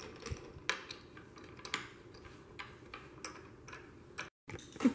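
Light, irregular metal clicks and ticks as a knob is turned by hand onto a bolt through a wooden frame rail.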